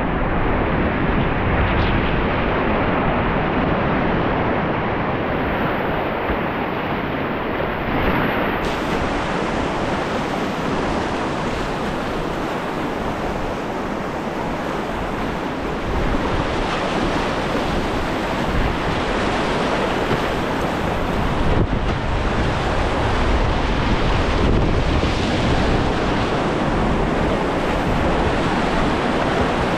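Whitewater rapids rushing steadily, heard close from a kayaker's PFD-mounted camera, with low rumbling buffeting on the microphone.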